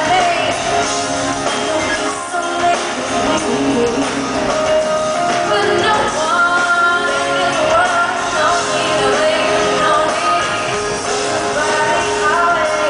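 Live pop concert music in an arena: a woman singing lead into a handheld microphone over the band, heard through the PA.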